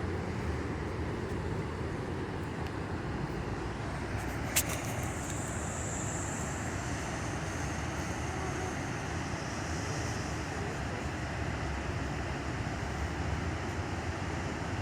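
Steady rushing of a river waterfall, an even noise without a break. A single sharp click comes about four and a half seconds in.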